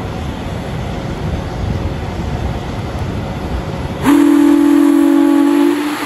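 Recently restored 8-inch three-chime Lonergan steam whistle: a steady rush of venting steam, then about four seconds in the whistle blows loud, sounding a chord of several steady tones that dips briefly near the end and carries on.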